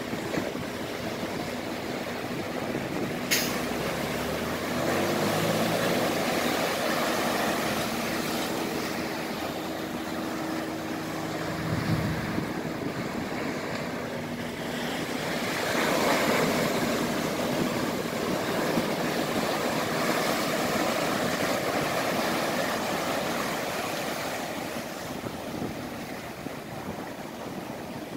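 Ocean surf breaking and washing over rocks, swelling and easing with each wave. From about four seconds in to about thirteen seconds, a low engine hum runs under the surf, and there is a sharp click about three seconds in.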